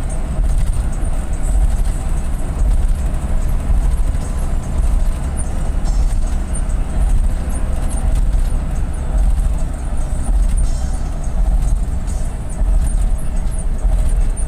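Steady low rumble of a moving bus: engine and road noise.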